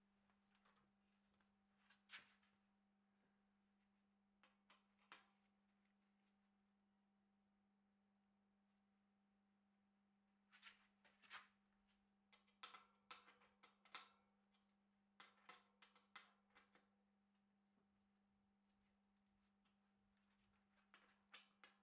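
Near silence with a faint steady hum. Over it come scattered faint clicks and clinks from hands working the bicycle chain and rear wheel at the dropout, busiest about halfway through.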